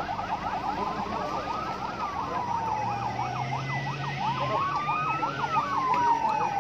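Two vehicle sirens sounding together: one a fast yelp sweeping up and down several times a second, the other a slow wail that rises and falls over a few seconds.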